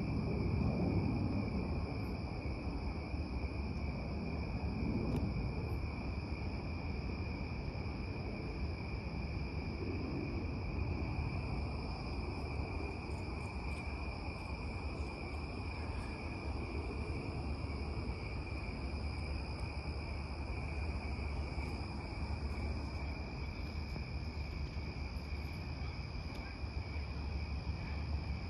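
Crickets chirping in a continuous chorus, a steady high trill, over a low background rumble.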